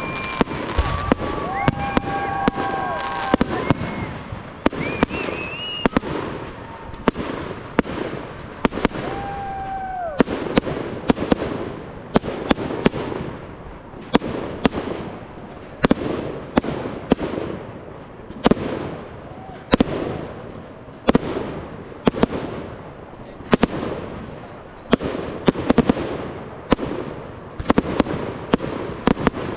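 Aerial fireworks display: shells bursting one after another, about two sharp bangs a second, each trailing off into crackle and echo.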